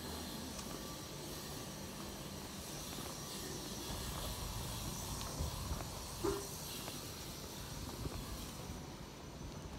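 Walking on concrete while the phone is carried: a few soft knocks and handling bumps over a steady background hiss.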